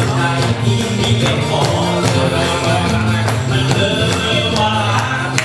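Music: a sung song over a steady percussion beat.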